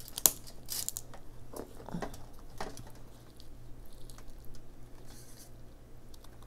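Cooked king crab leg shell being cracked and pulled apart by hand: a sharp crack about a third of a second in, then scattered snaps, clicks and soft scraping as the meat is worked out of the shell.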